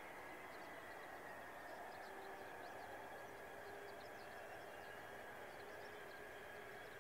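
Distant steady whine of the Mitsubishi F-2A's jet engine, easing slightly down in pitch over the first couple of seconds and then holding, under a faint outdoor hiss.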